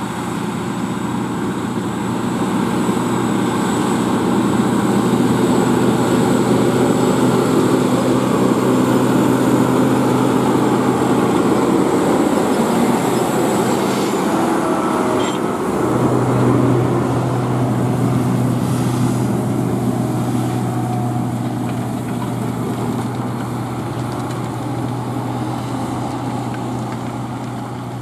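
Case IH Quadtrac 620 tracked tractor's diesel engine running steadily under load, pulling a Horsch Tiger 8 MT disc cultivator through stubble. The drone grows louder over the first few seconds, stays loud through the middle with its low note strengthening a little past halfway, and eases off towards the end.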